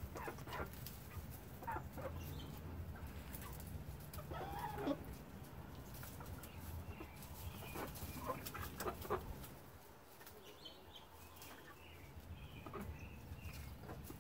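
Chickens clucking softly in short, scattered calls, with one longer call that rises and falls a few seconds in, over faint light ticks of the birds pecking and scratching.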